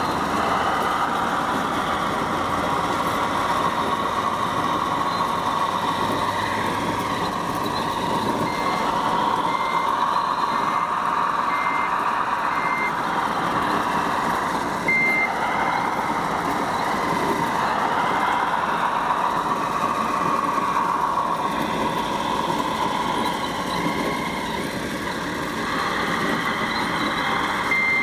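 Radio-controlled construction machines working, their drive sound slowly rising and falling, with a reversing beeper giving short high beeps a little under a second apart for a few seconds about a third of the way in and again near the end.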